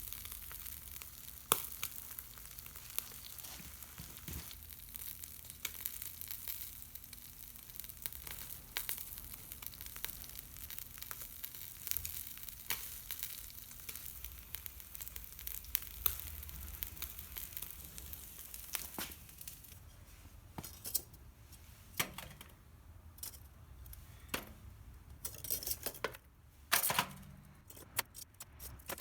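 Mackerel grilling over charcoal in a shichirin: a steady sizzling hiss with scattered crackles and pops, which come thicker and louder in the last several seconds.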